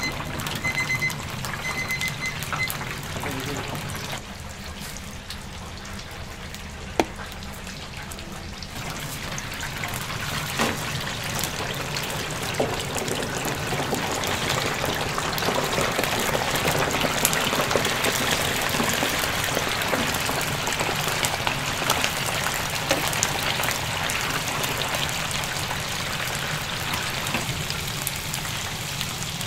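Batter-coated chicken deep-frying in hot oil: a dense sizzle and crackle that grows louder about ten seconds in and stays strong. A few short electronic beeps sound near the start, over a steady low hum.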